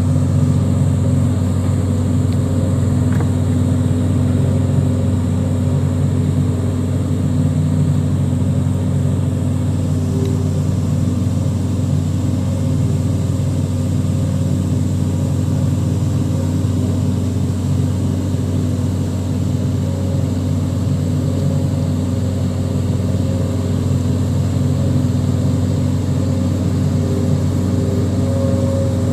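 Engine of an SP500 concrete-casting machine running steadily while it slip-forms an L-shaped concrete gutter, a constant low hum with no change in speed.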